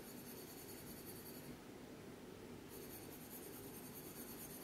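Faint, steady scratchy swish of dry semolina grains sliding in a stainless steel saucepan as it is moved over the gas burner while dry-roasting.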